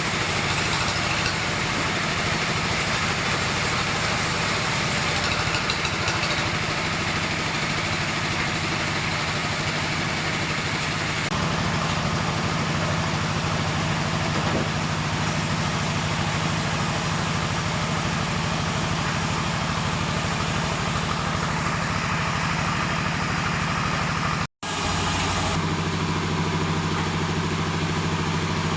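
Sawmill machinery running steadily: a saw and its driving motor giving a continuous loud whir and hum, breaking off for a split second near the end.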